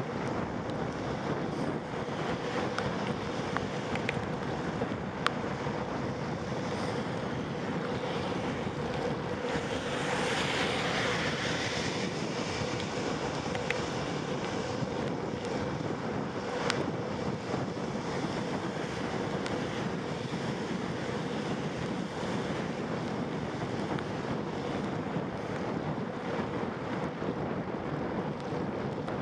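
Wind rushing over the microphone and steady road hiss from riding a bicycle in the rain, with a faint steady hum underneath. About ten seconds in, a louder hiss swells for a couple of seconds, and a few sharp clicks stand out.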